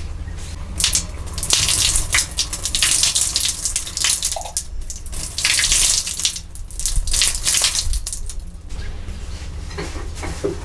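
Water poured from a ceramic jug splashing onto a wooden board as it is rinsed by hand, the stream running unevenly with short breaks and stopping near the end.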